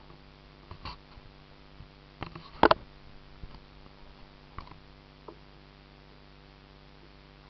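Scattered knocks and taps on a plastic kayak hull, the loudest a close double knock about two and a half seconds in, over a steady low hum.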